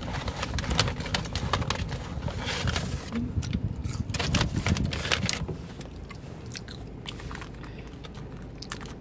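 Paper takeout bag rustling and crinkling as a hand rummages inside it: a dense run of crackles that thins to scattered clicks after about five and a half seconds.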